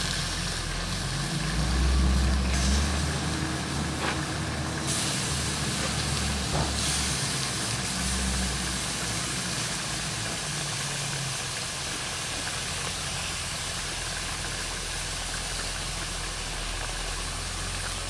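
Pork pieces simmering in sauce in a plow-disc pan over a wood fire: a steady hiss. A low rumble runs under it for the first half.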